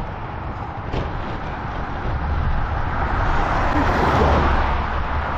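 Wind rushing over the microphone and bicycle tyres rumbling on a rough road surface while riding. The noise grows louder about halfway through, with a single click about a second in.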